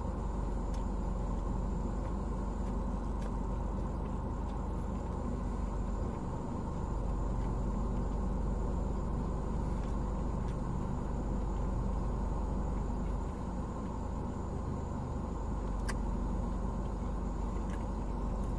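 Steady low rumble of a car idling, heard from inside the cabin, with a few faint clicks.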